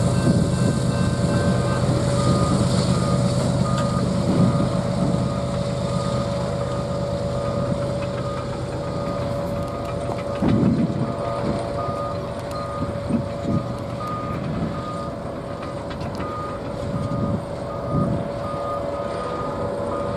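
Railroad grade-crossing bell ringing steadily, a ding about every two-thirds of a second, over the low rumble of a passing Norfolk Southern freight train and its diesel locomotive, with a few dull thumps in the second half.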